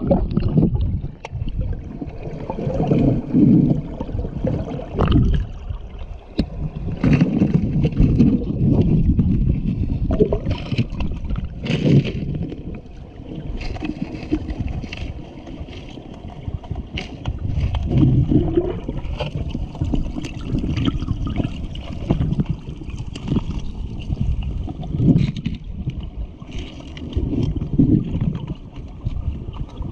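Muffled underwater sound of moving river water heard by a submerged camera: a low churning rumble that swells every few seconds, with scattered knocks and bumps.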